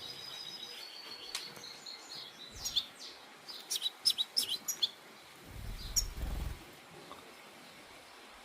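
European goldfinch giving a quick run of short, sharp chirps, then one more a second or so later. A faint steady high whistle fades out in the first second and a half, and a low rumble comes near the end of the chirping.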